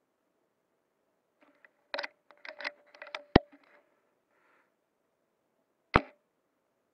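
Bolt-action spring airsoft sniper rifle: a quick run of clicks and rattles as the bolt is cycled, ending in a sharp snap, then a single sharp shot about six seconds in.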